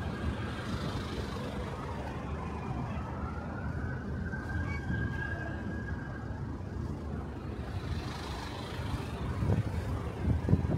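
Steady traffic noise on a busy city road, with a siren gliding up and back down once in the middle. Wind buffets the microphone in gusts near the end.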